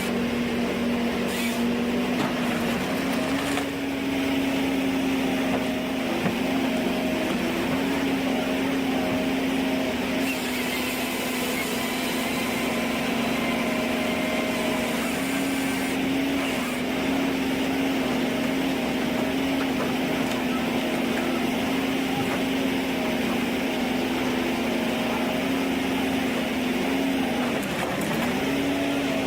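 Ponsse Ergo forestry harvester's diesel engine running steadily under working load. Its pitch sags and recovers slightly now and then, with a brief dip near the end.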